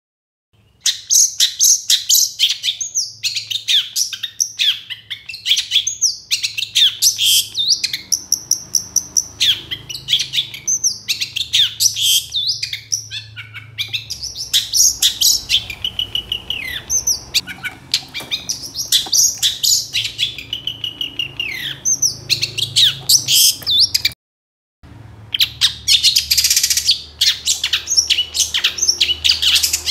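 Long-tailed shrike (cendet) singing hard: a fast, unbroken run of sharp chirps and harsh notes. The song cuts out abruptly for about half a second near the end, then resumes.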